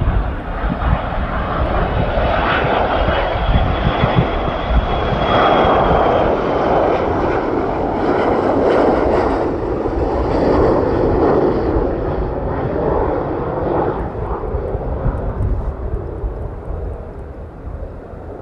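Boeing 737-200's twin Pratt & Whitney JT8D-15A low-bypass turbofan engines on final approach passing close by. A loud, steady jet roar carries a thin high whine that drops in pitch a few seconds in. The roar fades over the last few seconds as the jet moves away.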